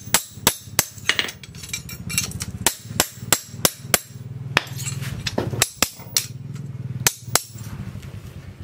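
Hand hammer striking a steel leaf-spring knife blank on a steel anvil post: a run of about fifteen sharp metallic strikes, irregularly spaced, two to three a second, that stop near the end. A steady low hum runs underneath.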